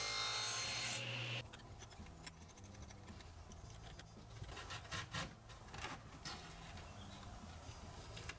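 Table saw cutting a spline slot through a plywood corner held in a spline jig, the noise stopping about a second and a half in. Then quieter, irregular rubbing and scraping of wood as glued wooden splines are pushed into the saw slots.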